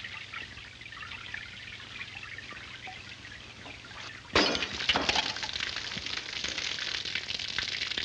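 Faint crackling hiss, then about four seconds in a sudden sharp crack of breaking glass as a water-filled light bulb bursts. It is followed by a steady hiss of water pouring from the light socket into the fixture's glass bowl.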